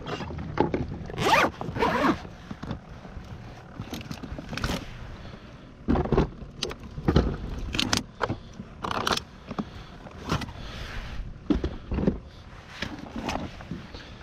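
Zipper of a soft-sided cooler being pulled, in several short strokes, mixed with scraping and knocks as things are moved in and around the cooler.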